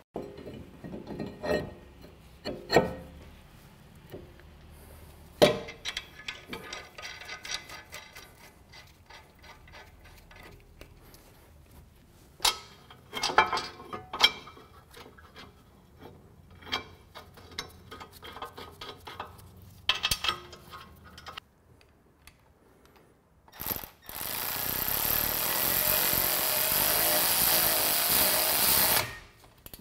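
Metal tools and suspension parts clinking and knocking in scattered strikes during hand work on a car's front hub. Near the end a tool runs loudly and steadily for about five seconds, then stops.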